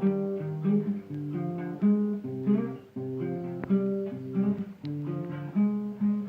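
Guitar played without singing: plucked notes and chords in a steady, rhythmic pattern. A single sharp click sounds a little past halfway.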